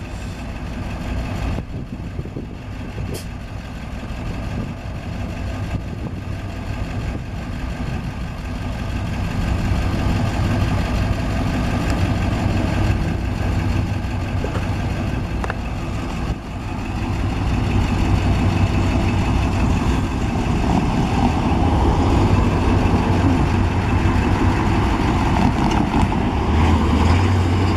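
School bus engine idling close by, a steady low rumble that grows louder through the second half, with passing road traffic near the end.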